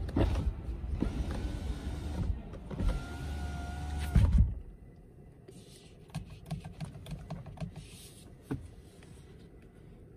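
The 2022 Kia Stinger GT's power window motor running, a steady whirring whine as the glass travels, which stops with a thump about four and a half seconds in. Light clicks and taps follow.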